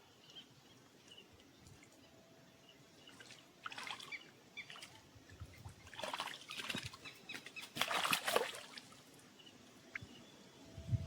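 Water splashing in a few short bursts with light clicks, starting after a quiet first few seconds.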